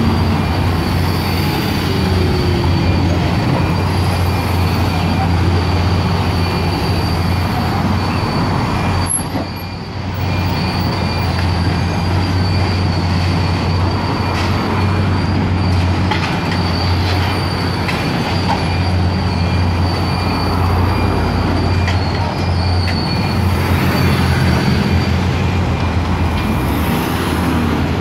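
High-reach demolition excavator working on a building: a steady low engine hum with a thin, high-pitched squeal running over it, and scattered knocks and clatter of concrete and steel being torn down. The noise dips briefly about ten seconds in.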